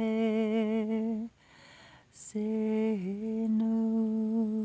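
A woman's voice toning in light language: a long, low sustained note with slight vibrato breaks off about a second in. After a breath, she holds a second long note on the same pitch, with a brief dip in pitch early on.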